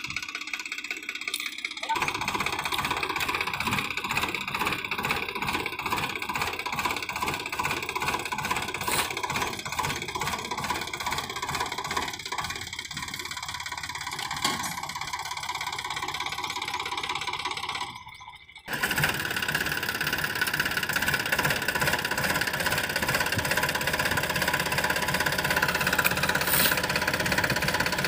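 Sonalika DI 35 RX tractor's diesel engine running hard under load, with the trolley full of sand and the rear wheels dug into loose sand as it tries to pull free. The sound drops out briefly about two-thirds of the way in, then comes back louder.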